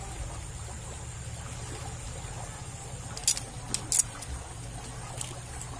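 Water rushing down a narrow concrete ditch, a steady low rumble, with a few sharp clicks a little past halfway and once more near the end.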